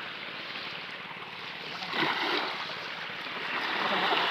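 Waves washing against the shore, a steady surf noise that swells about two seconds in and again near the end.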